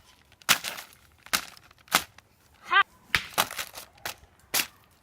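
A series of about eight sharp, irregular knocks or blows, with a short high-pitched vocal cry a little under three seconds in.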